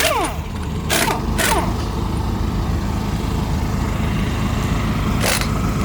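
Small gasoline engine running steadily, likely the one driving the truck-mounted air compressor, with three short bursts of air-tool noise that trail off in falling tones: about a second in, half a second later, and near the end.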